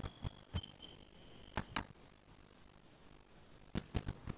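Faint computer mouse clicks, coming in quick pairs, a few in the first two seconds and a short run near the end. A faint high steady whine runs through the first couple of seconds.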